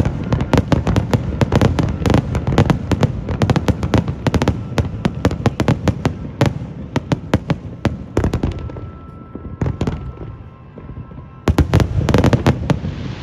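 Aerial fireworks going off in rapid succession, many sharp bangs overlapping. The bangs thin out a little past halfway, then a dense barrage follows near the end.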